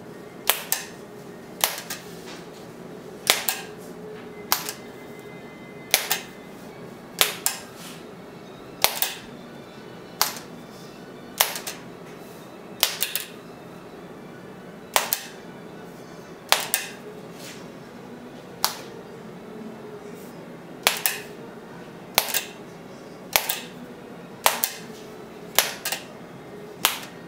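Keys of a manual typewriter keyboard for the iPad being struck one at a time, a sharp clack about once a second.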